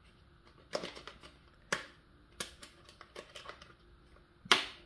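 Hard plastic toy bridge track pieces clicking and knocking together as they are handled and snapped into place: a handful of sharp clicks, the loudest near the end.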